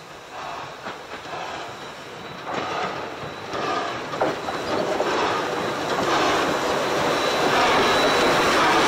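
South Australian Railways Rx-class steam locomotive Rx224 and its train approaching, the rumble growing steadily louder as it draws near. A thin, high, steady whine joins about six seconds in.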